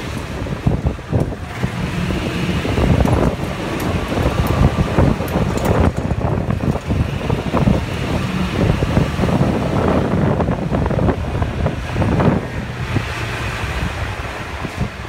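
Golf cart driving along, its motor and tyres making a steady rumble, with wind buffeting the microphone.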